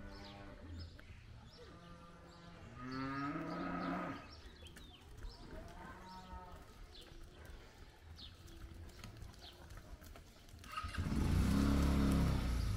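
Cattle mooing: three long calls a few seconds apart, with small birds chirping. Near the end a much louder, lower sound sets in close by.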